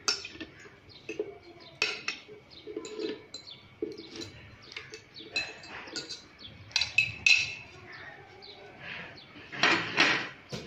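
A metal fork clinking and scraping against a glass bowl as peach pieces are tipped from it into a plastic blender jar, with scattered knocks and clinks that are loudest near the end.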